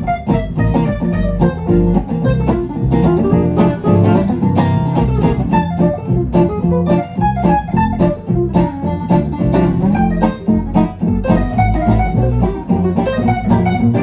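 A gypsy jazz trio playing: a lead acoustic guitar picks a fast melody over rhythm guitar chords and double bass.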